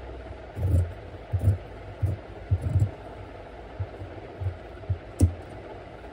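Tailor's scissors cutting through suit fabric on a table: a string of irregular snips and thumps with the cloth rustling, the sharpest about five seconds in, over a steady background hiss.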